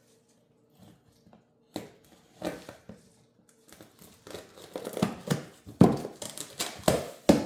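Packaging rustling and crinkling as parts are handled and unpacked from a shipping box, with scattered knocks that grow busier in the second half and one sharp knock near the end.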